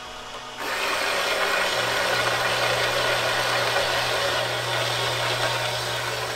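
Drill press running a 2-inch bimetal hole saw that bites back into quarter-inch aluminum plate about half a second in: a loud, steady cutting noise over the motor's hum.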